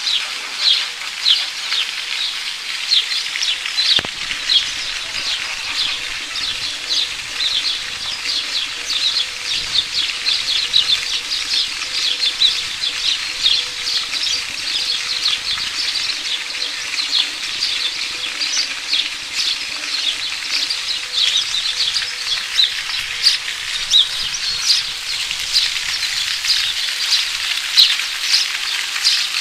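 Many small birds chirping at once, a dense, continuous chatter of short high chirps, with a faint steady hum underneath.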